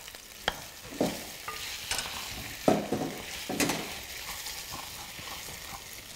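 Chicken pieces frying in a stainless steel pan, sizzling steadily while being stirred with a wooden spoon, with a few sharp clinks and knocks in the first four seconds.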